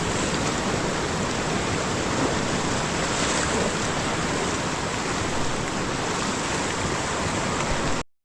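Rushing whitewater of river rapids, a steady, dense rush of water that cuts off suddenly near the end.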